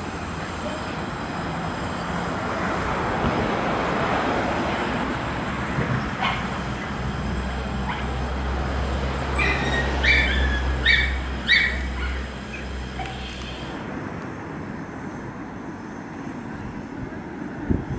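Two small narrow-gauge saddle-tank steam locomotives working a train of vintage carriages out of the station: a steady hiss of steam with a low rumble. About ten seconds in come a few short high-pitched sounds, and near the end it drops to a quieter background.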